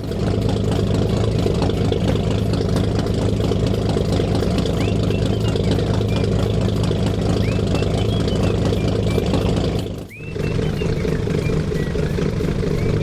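An engine idling steadily, with short high chirps over it. It drops out briefly about ten seconds in, then carries on the same.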